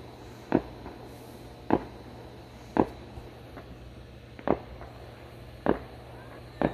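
Fireworks going off in a series of sharp bangs, six reports about a second apart at an uneven pace.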